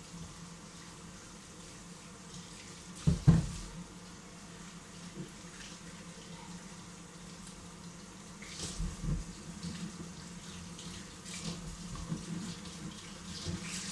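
Kitchen tap running into a stainless steel sink as vegetables are rinsed and rubbed under the stream. There are a few knocks in the sink, the loudest a sharp one about three seconds in and a small cluster a little past the middle.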